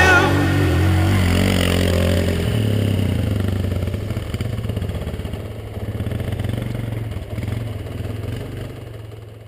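Dirt bike engine idling steadily, close to the microphone. It fades out near the end.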